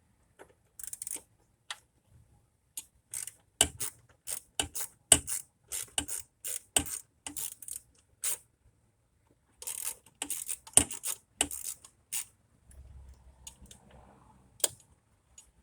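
Hand tools and bolts clinking and clicking against metal in irregular sharp strikes, some in quick runs, while an EGR valve is bolted back onto the engine. There are short pauses about 8 seconds in and again near the end.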